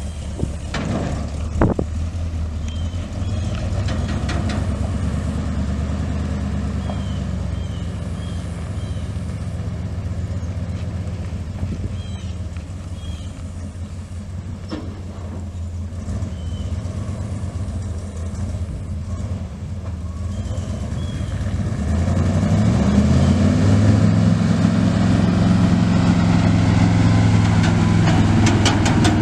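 A 6.0L V8 gas engine in a dump truck running steadily at idle. About three quarters of the way through, its speed rises and then holds higher and louder.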